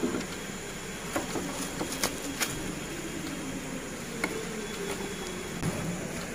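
Plastic bubble wrap and cardboard parts boxes being handled, with a few short, sharp crinkles or clicks over a steady background hiss.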